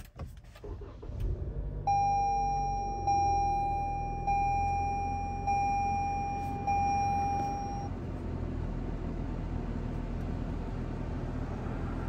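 2022 Toyota RAV4's 2.5-litre four-cylinder engine starting from the push-button, its rumble building over the first second or so, then idling steadily. About two seconds in, a dashboard warning chime sounds five times, a little over a second apart, then stops.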